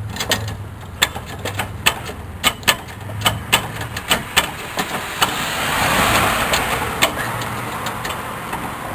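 Car jack being cranked up under a vehicle: a string of sharp clicks, two to three a second for about five seconds and then sparser, over a steady low hum. A broader rushing noise swells about six seconds in.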